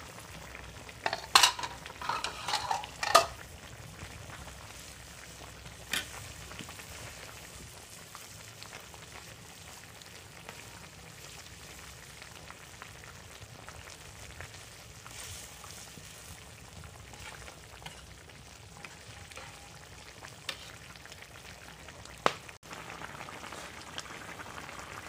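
Curry bubbling and sizzling in a metal wok as a metal ladle stirs it. A quick run of sharp knocks of the ladle against the pan comes about one to three seconds in, and a few single knocks come later.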